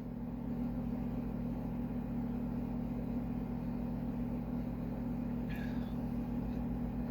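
Steady low mechanical hum made of several even tones, with a brief faint higher sound about five and a half seconds in.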